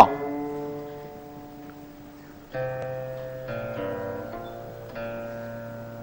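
Background music: a plucked string instrument playing slow single notes that ring out and fade. A note dies away over the first two seconds, then new notes come in about once a second from about two and a half seconds in.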